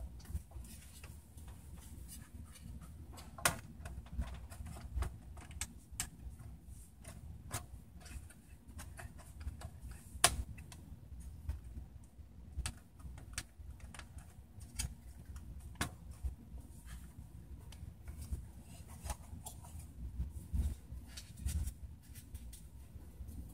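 Scattered light clicks and metallic taps of a fat PS3's opened parts being handled (its metal shield, cooling fan and circuit board), over a low background rumble. The sharpest clicks come about three, ten and sixteen seconds in.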